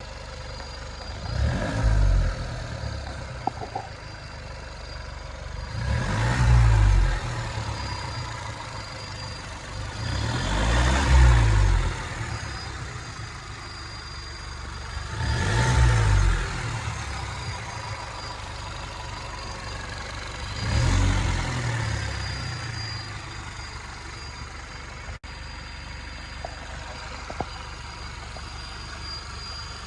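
VW 1.4 TSI (CAX) turbocharged four-cylinder engine idling and blipped to a short rev five times, about every 4 to 5 seconds. Over the idle sits a steady, annoying high-pitched whine. It is the rpm-dependent squeal heard only when the engine is warm, which the owner traces to the area of the water pump and cannot identify.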